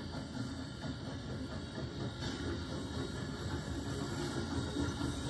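Narrow-gauge steam train passing: Rio Grande 464, a K-27 2-8-2 locomotive, working under steam with hissing, and its passenger coaches rolling by on the rails.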